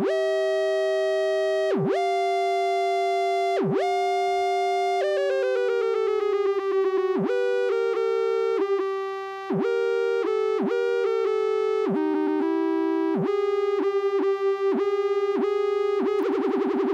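Lorre Mill Double Knot v3 synthesizer, two oscillators sounding together. One holds a steady tone while the other steps between pitches, sometimes swooping or sliding slowly down and sometimes holding still: its slew circuit is switched by shift-register data between gliding and a track-and-hold. Near the end the sound turns into a buzzy, rough drone as a cable is repatched.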